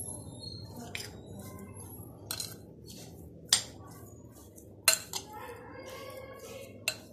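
Metal spoon stirring a thick semolina and vegetable batter in a glass bowl, clinking sharply against the glass about five times at uneven intervals.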